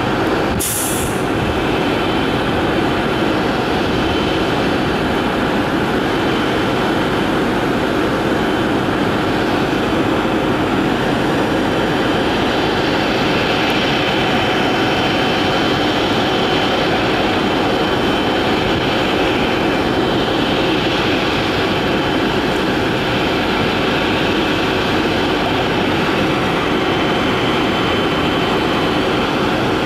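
Boeing 777-300ER's twin GE90-115B turbofan engines running at low taxi power as the airliner taxis: a steady jet rumble and hiss with a faint high fan whine that wavers slightly. A brief high hiss comes about a second in.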